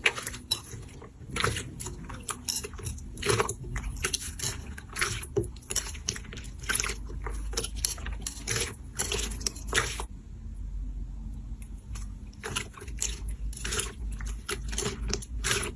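Slime being handled, giving a stream of irregular crackling clicks and pops, with a quieter stretch about ten seconds in.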